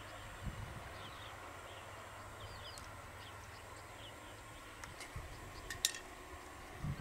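Faint, short bird chirps over a steady background hiss, with a few soft low thumps and one sharp click near the end.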